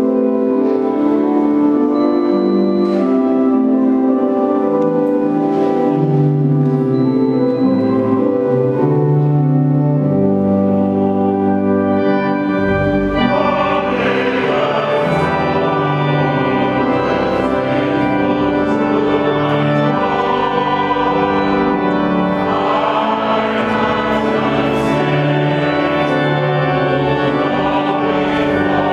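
Electronic organ playing a slow hymn in long sustained chords. About halfway through, a choir or congregation joins in singing, filling out the sound.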